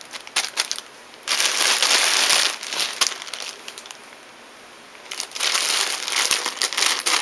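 Thin clear plastic bag crinkling and rustling as gloved hands handle it, in two spells with a quieter pause of about two seconds between them.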